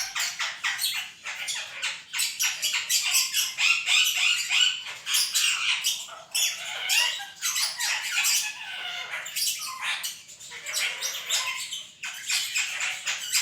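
Parrots squawking and chattering in a dense, continuous stream of short, high calls.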